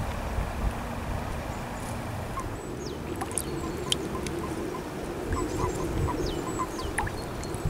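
Common toads calling at a breeding pond: a low, wavering croaking chorus that swells from about two seconds in. Birds give thin, high, falling calls over it, and wind rumbles on the microphone at the start.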